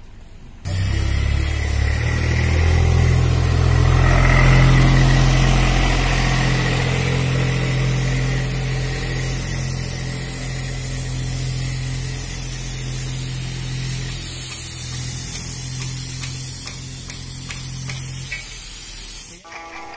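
Gravity-feed paint spray gun spraying, a steady loud hiss of compressed air and paint mist over a steady low motor hum. It starts about a second in and cuts off shortly before the end.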